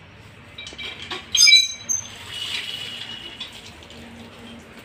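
Iron hand pump being worked: a loud, high squeal about a second and a half in, then water pouring out for a second or so.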